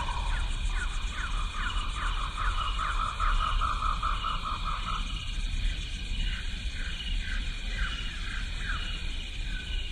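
Wild animals calling: a fast run of repeated short calls, several a second, for about five seconds, then scattered calls. Under them run a steady high trill and a low rumble.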